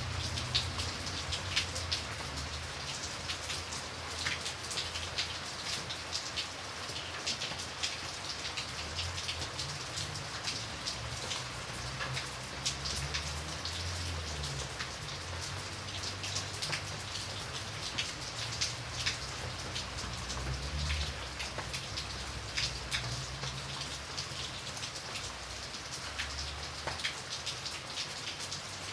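Light rain falling steadily: a soft hiss, dotted with the ticks of individual drops.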